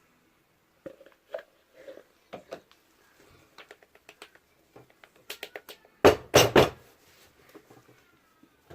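Small clicks, taps and knocks of soap-making containers and utensils being handled while ingredients are added to a soap mould, with a louder clatter of several knocks about six seconds in.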